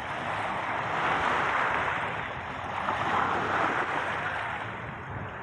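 Small sea waves washing onto a sand-and-pebble shore, the surf swelling twice, with some wind on the microphone.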